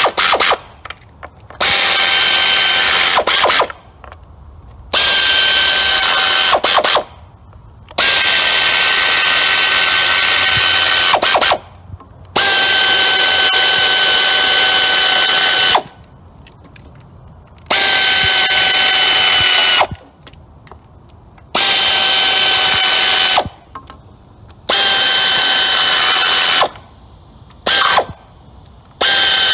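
Pneumatic air ratchet running in about nine spurts of one to three seconds each, a steady whine over air hiss, as it runs down the valve cover bolts.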